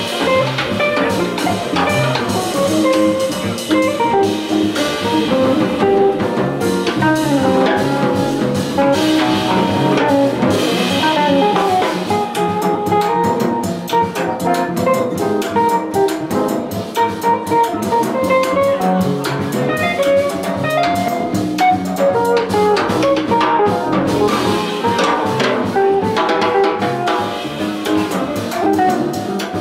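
Jazz quartet playing live: alto saxophone, semi-hollow electric guitar, upright double bass and drum kit with ride cymbal, in a steady ensemble passage with melodic lines over the rhythm section.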